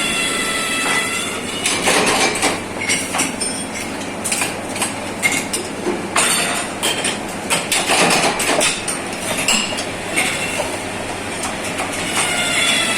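Metalworking shop noise: repeated metal clanks, knocks and clinks, with a high squealing whine near the start and again near the end.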